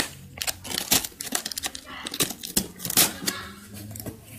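Utility knife slicing and scraping along packing tape on a cardboard box, with tape ripping and cardboard rustling in irregular strokes, the sharpest about a second in and near three seconds.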